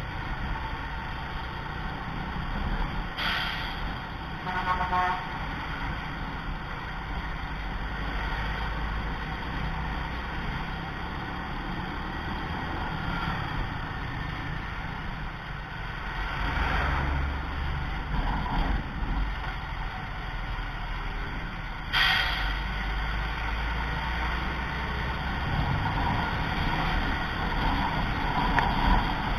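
Steady road and engine rumble from driving close behind a bus, with wind on the microphone. A vehicle horn toots briefly a few seconds in, and there is a sharp knock about two-thirds of the way through.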